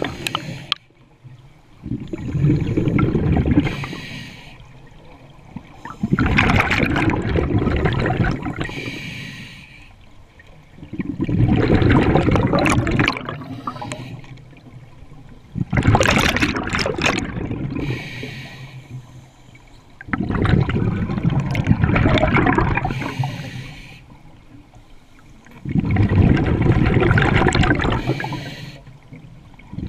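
Scuba regulator breathing underwater: six loud bursts of exhaled bubbles, each lasting two to three seconds and coming about every five seconds, with the quieter hiss of an inhalation between them.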